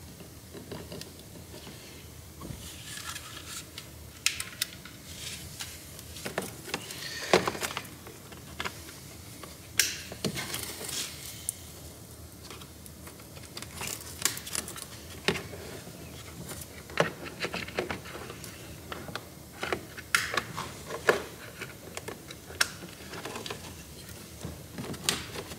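Irregular sharp plastic clicks, taps and short rustles as a power window switch and its plastic door-trim bezel are handled and fitted together.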